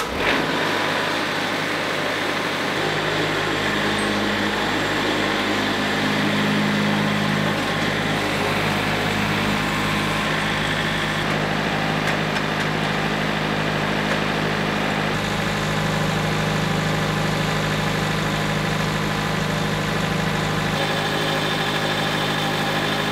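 Diesel engine of a Wood-Mizer portable sawmill running steadily, just after being started.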